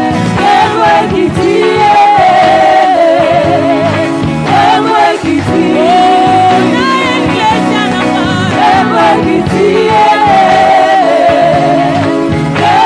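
Gospel worship song: a woman sings a melody in phrases with a wide vibrato over sustained instrumental backing, with choir voices behind her.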